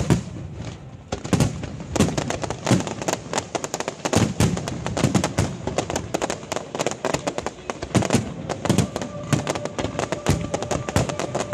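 Fireworks display: a rapid, continuous barrage of bangs and crackling from aerial shells and ground-launched fireworks, several shots a second.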